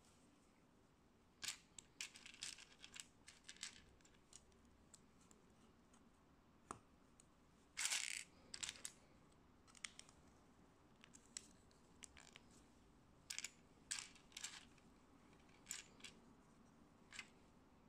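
Small plastic Sembo building bricks clicking and snapping together while being assembled, with brief rattles of loose pieces being picked from a pile. The clicks come singly and in short clusters, the loudest a longer rattle about eight seconds in.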